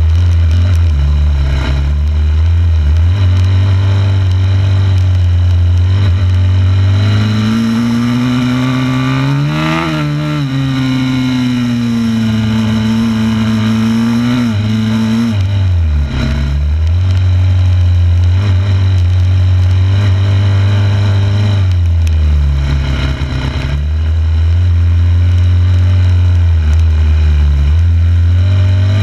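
2006 Yamaha YZ250F's 250 cc four-stroke single-cylinder engine running hard while the bike is ridden. Its pitch climbs to a peak about ten seconds in and falls back, then dips briefly twice more as the engine speed drops and picks up again.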